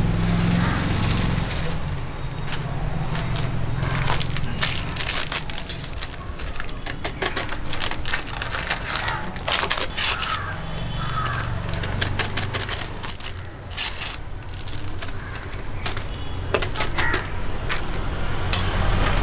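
Plastic bag and small spice packets crinkling and being shaken out as powders are emptied into a large aluminium pot, with many small crinkles and taps throughout. A low background hum runs underneath.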